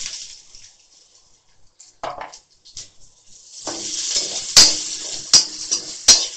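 Chopped onion frying in a little hot oil in a kadai. The sizzle fades in the first half second. From about four seconds in, a slotted metal spoon stirs the onion: the sizzle rises again, with sharp clinks of the spoon against the pan about every three-quarters of a second.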